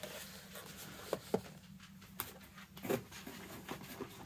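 Light handling noises: a few short clicks and knocks as a boxed figure in plastic packaging is set down and items are moved on a table, over a low steady hum.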